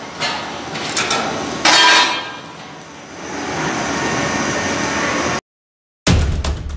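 Metallic clanks and rattles of sheet metal being handled at a press brake, the loudest a ringing clank a little under two seconds in, followed by steady machine noise. Near the end the sound cuts out, and a moment later music with thumping beats begins.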